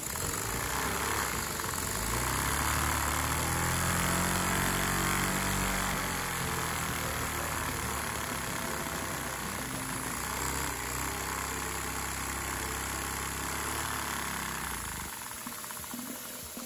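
A vacuum-driven LEGO engine runs over a steady rush of air. Its pitch rises over the first few seconds, then slowly falls as it slows down, and it fades away near the end.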